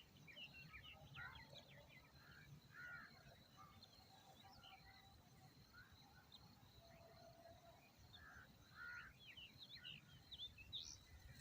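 Faint, scattered bird chirps and short calls, many small notes coming irregularly throughout, over a faint steady high-pitched whine.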